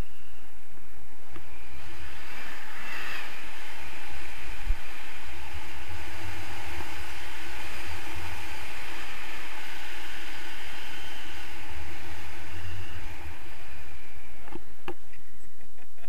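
Wind rushing over an action camera's microphone in paraglider flight: a steady rumbling buffet with a hiss above it. A few light clicks near the end.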